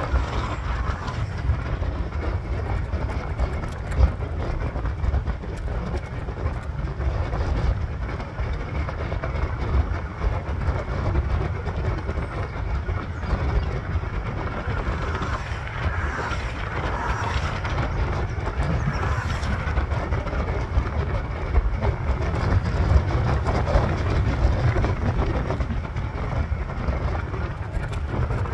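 Electric scooter riding over asphalt: a steady low rumble from its small wheels, with many small knocks and rattles as it runs over the road surface.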